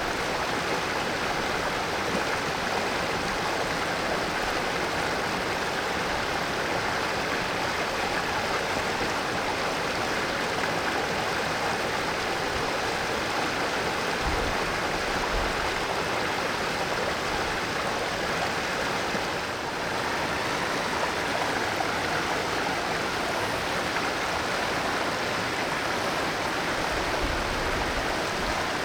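Mountain valley stream flowing briskly over rocks, a steady rush of water.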